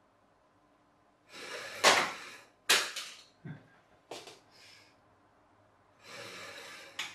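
Rubber-band-powered 3D-printed plastic helicopter flying: about a second in, a second of whirring from the spinning rotor with a sharp knock inside it, then another sharp knock and a softer thud as it strikes and drops. Near the end comes another short whirr that ends in a knock.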